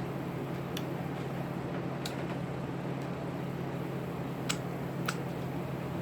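A steady low hum over a constant hiss, broken by a few sharp clicks, the two loudest close together near the end.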